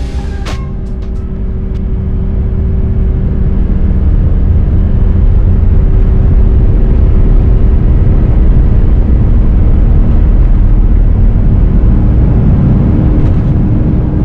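Airbus A350's Rolls-Royce Trent XWB engines at takeoff power, heard inside the cabin: a deep rumble with a steady hum that grows louder over the first few seconds as the aircraft accelerates down the runway, then holds. Background music stops within the first second.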